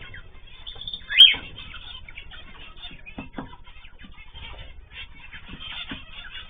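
Mixed cage birds (cockatiels, zebra finches and canaries) chirping and calling continuously, with one loud, sharp call about a second in.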